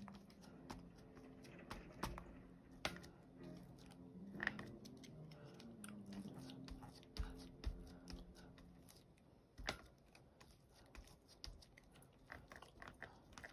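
Soft, irregular taps and dabs of a foam ink dauber pressed repeatedly through a plastic stencil onto paper.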